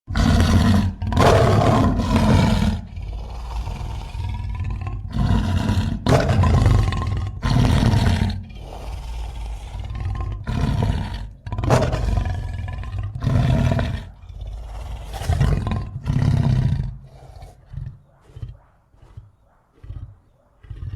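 Monster roars for a sound-effects set, layered from film-monster, lion and grizzly bear roar recordings: a string of loud roars, each a second or two long with short gaps between. Near the end they give way to a run of shorter, softer grunts that fade out.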